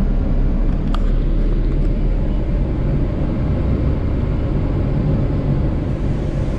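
Intercity coach bus engine and road noise heard inside the driver's cab as the bus rolls slowly: a steady low rumble, with one short click about a second in.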